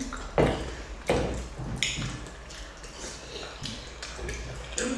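Close-up eating sounds: chewing and wet mouth noises as chicken and rice are eaten by hand, with a handful of short, light taps of fingers and cutlery on plates.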